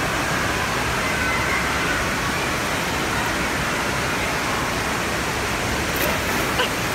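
Steady rushing-water hiss of an indoor water park pool area, with faint distant voices under it. A short splash about six seconds in as a child falls off a floating pad into the pool.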